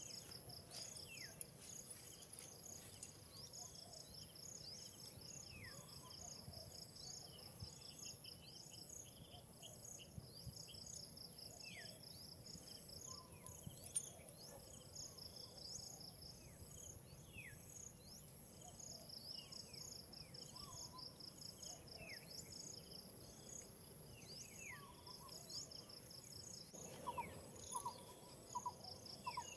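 Faint outdoor insect chorus, a steady high pulsing buzz, with short downward-sliding bird chirps now and then. Near the end a quick series of short, louder chirps comes in.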